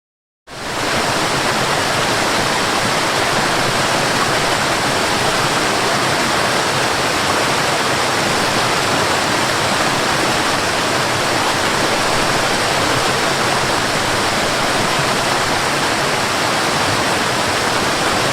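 Waterfall: a steady, loud rush of falling water that starts suddenly about half a second in.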